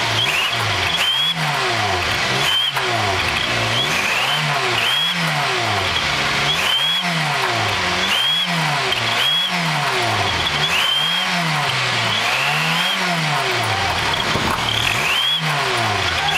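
Car engine revved over and over, its pitch rising and falling about once a second. A homemade turbo whistler in the exhaust pipe adds a steady high whistle that sweeps up at each rev, meant to imitate a Formula 1 exhaust note.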